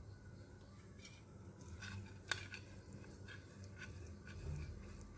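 Block of paneer rubbed on a flat stainless-steel hand grater: a series of faint, uneven scraping strokes, with one sharper click a little over two seconds in.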